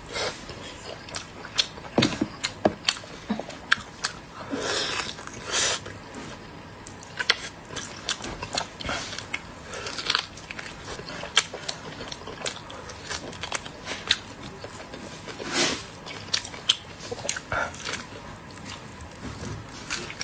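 A person eating close to the microphone: irregular wet chewing and biting clicks, with a few longer smacking, slurping-like smears.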